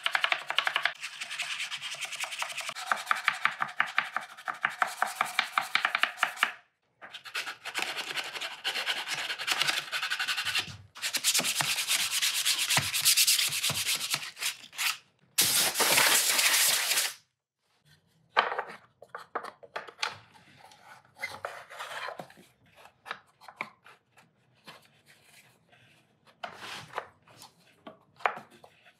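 Fast, repeated abrasive rubbing strokes, like sanding or filing a workpiece, in several sections that stop abruptly, with a brief harsh hissing burst partway through; the rest is scattered small clicks and knocks of parts being handled.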